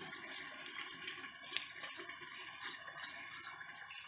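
Wet rice being scraped by hand out of a bowl into a pressure cooker of chicken gravy. It drops into the liquid with a soft, wet patter and a few small clicks.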